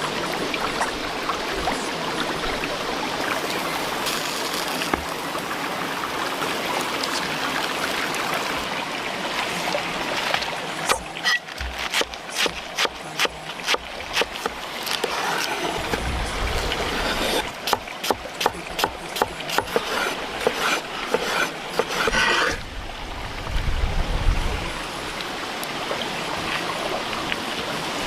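Steady rushing noise of flowing water. From about eleven seconds in until about twenty-two seconds it is broken by a long run of sharp knocks or clicks, with a few more around twenty-four seconds.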